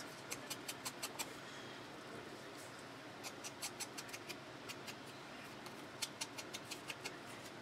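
Ink blending tool dabbed and rubbed along the edges of paper cut-outs: faint, irregular scratchy taps in short runs.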